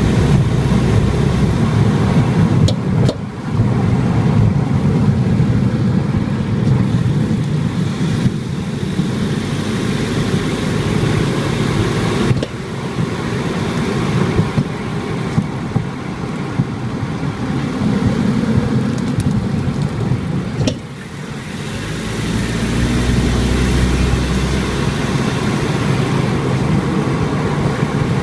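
Car driving with steady road and engine rumble, broken by a handful of sharp knocks from the right-front BLITZ ZZ-R coilover. The clunking comes from a damper cartridge that has lost its gas charge, an initial defect.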